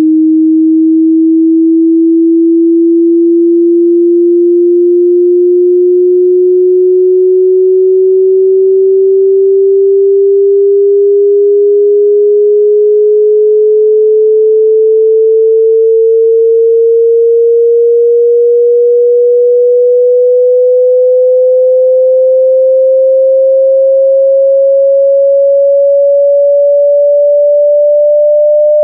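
A single pure sine tone at constant loudness, gliding slowly and smoothly upward in pitch by about an octave: a hearing-test frequency sweep.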